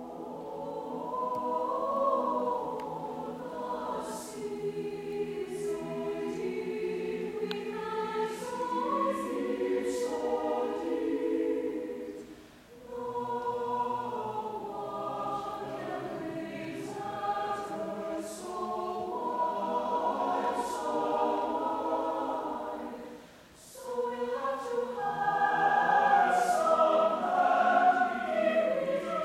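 Mixed choir of men's and women's voices singing, coming in from near silence at the start. The singing breaks off briefly twice between phrases, and the last phrase is the loudest.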